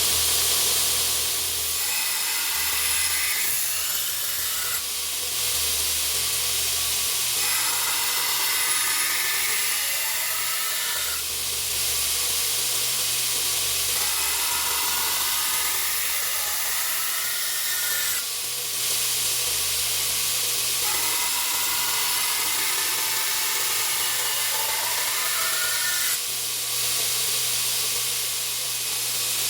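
Belt grinder running with a steady motor hum and belt hiss. A steel knife blade held in a bevel jig is drawn across the belt in repeated passes of a few seconds each, and each pass adds a higher grinding sound. This is stock-removal grinding of the blade's bevels.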